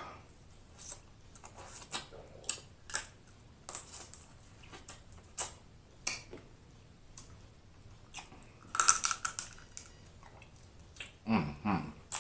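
Snow crab leg shells cracking and snapping in the hands, close up, with chewing and lip smacks, in scattered sharp clicks. A denser run of cracking comes about nine seconds in, and a short, louder mouth sound comes just before the end.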